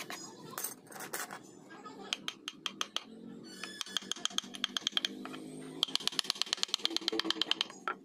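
Steel carving chisel tapped into teak with a wooden mallet: a string of sharp wooden clicks, quickening near the end into a fast run of about ten taps a second.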